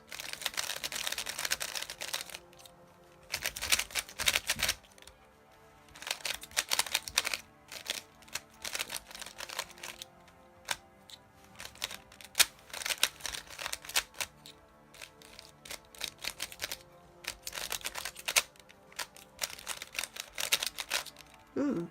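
Rubik's speedcube made by GAN, fresh out of the box and nearly dry of lubricant, being turned by hand in bursts of rapid plastic clicking and clacking, with short pauses between the bursts.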